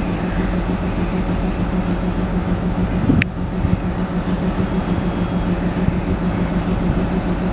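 WDG-4 diesel locomotive, an EMD 16-cylinder two-stroke, running with a steady low engine drone as it approaches. One sharp click comes about three seconds in.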